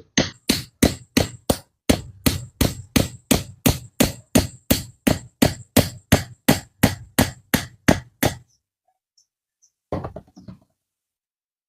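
Hammer blows struck steadily at about three a second, some two dozen in all, stopping a little past eight seconds in; a brief scuffling noise follows near the end.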